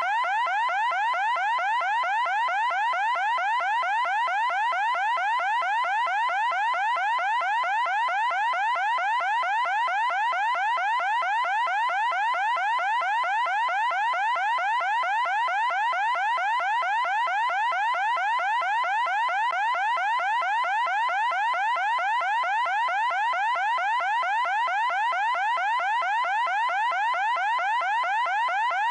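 Loud electronic alarm: a fast, unbroken string of rising chirps, several a second, at a steady level.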